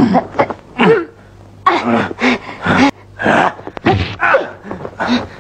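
Short shouts, grunts and cries from people fighting in an old film's soundtrack, with a couple of sharp smacks about four seconds in and a low steady hum underneath.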